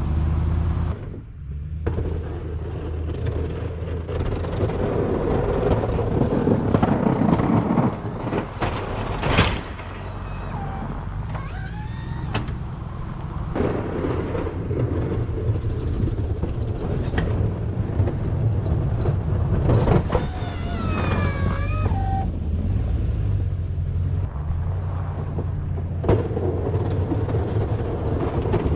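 A vehicle's engine running steadily, with a brief dip about a second in and a few short high squeals partway through.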